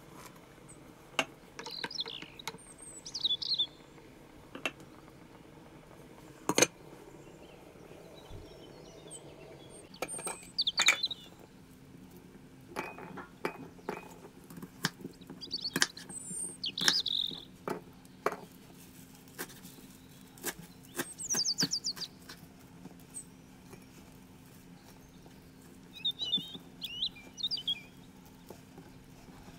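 A small bird chirping in short bursts every few seconds, over scattered knocks and clicks of kitchen work at a wooden cutting board.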